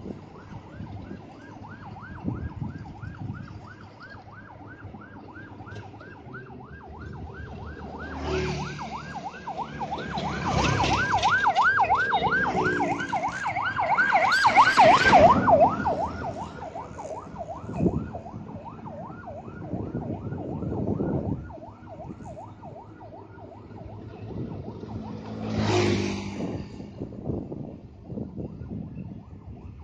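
A siren warbling up and down several times a second, swelling louder in the middle and then easing off, over the low steady running of a Komatsu PC200 excavator's diesel engine. A few short noisy bursts break in, the loudest near the middle and another near the end.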